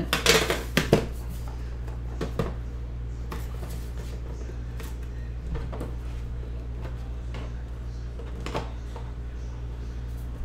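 Handling of a metal trading-card tin and the card box inside it: a quick cluster of knocks and clatters in the first second, then scattered light clicks and taps as the box is moved about and the cards are slid out. A steady low hum runs underneath.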